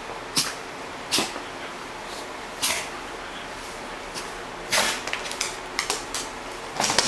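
A white golden retriever at rough play gives a few short, sharp puffs of breath about a second apart. Near the end comes a quick run of clicks as it scrambles up and off across the wooden floor.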